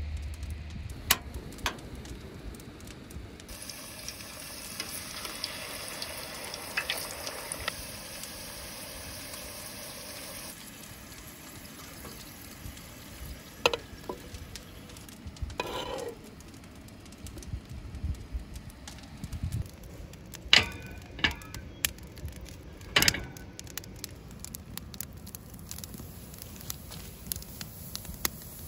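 Sliced potatoes sizzling as they fry in hot vegetable oil in a steel pot. The steady sizzle lasts several seconds and is followed by scattered sharp clinks of metal tongs and cookware.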